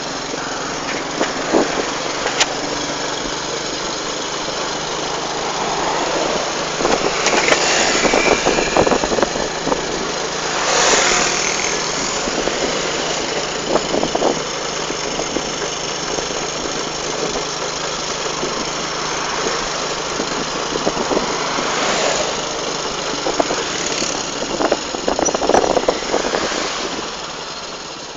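Motorcycle engine running steadily while riding, under a constant rush of wind and road noise, with several louder swells as the noise rises and falls.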